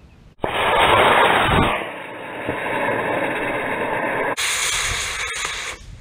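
Estes C6-3 black-powder model rocket motor igniting about half a second in with a sudden loud hiss that burns for under two seconds as the Tazz rocket lifts off. A quieter steady rushing noise follows and stops near the end.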